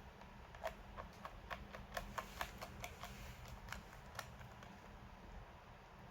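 A run of light, irregular clicks and taps, about a dozen over three seconds, starting about half a second in and stopping about four seconds in, over a faint steady hum.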